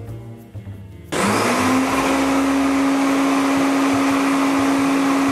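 Shop vac switched on as a blower about a second in: the motor spins up with a quick rising whine that settles into a steady loud hum over a rush of air blown through a fiberglass venturi cone on its outlet.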